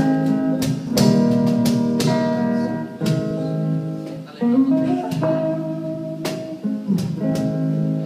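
Electric guitar strumming and holding chords through an amplifier, with an electric bass playing underneath, during a band sound check. Chords are struck every second or so, with a short dip about four seconds in.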